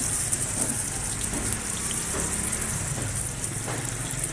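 Egg-dipped patties sizzling in oil on a large flat griddle: a steady, crackling hiss, with a low rumble underneath.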